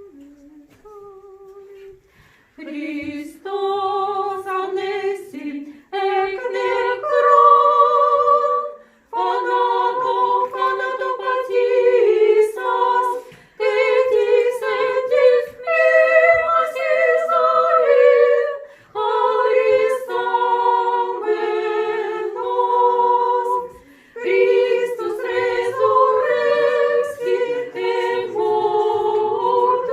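Orthodox church choir singing liturgical chant unaccompanied, in several voices, phrase by phrase with short pauses for breath. A single quiet voice comes first; the choir enters about two and a half seconds in.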